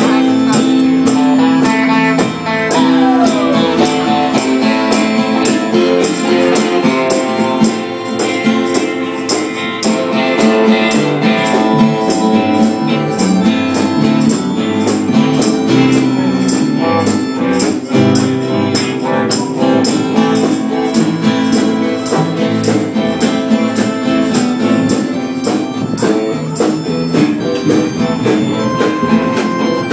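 Live band music: strummed guitars playing a steady, upbeat tune with a regular rhythm, no singing.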